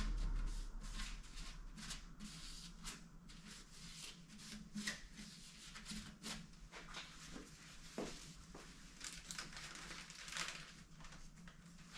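Irregular soft clicks and rustling from hand work on small parts, with a low rumble that dies away in the first second or so.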